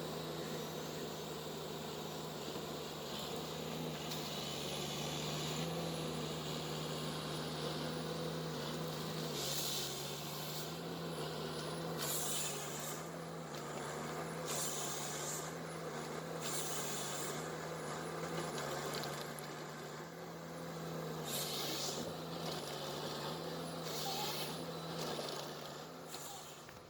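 Diesel engine of a Ponsse forestry machine running steadily, its pitch stepping up and down slightly, with repeated short hissing bursts through the middle and later part.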